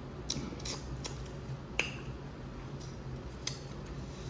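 Dungeness crab claw shell being handled and picked apart: scattered small clicks and snaps, with one sharper crack about two seconds in, over a low steady hum.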